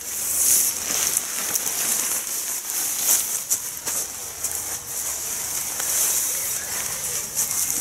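Lightweight nylon tent fabric rustling and crackling as the tent inner is unfolded, lifted and spread out flat, a steady hiss full of small crinkles.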